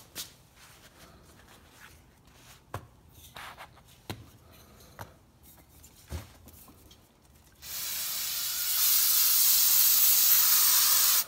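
Aerosol can of brake cleaner spraying onto a shop rag: one steady hiss of about three and a half seconds, starting about two-thirds of the way in and cutting off abruptly. Before it come a few faint clicks and knocks as the can is handled. The rag is being soaked to hold over a wideband O2 sensor, to test whether the sensor reads rich.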